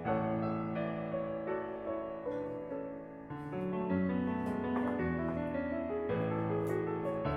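Background music: a piano melody with sustained chords.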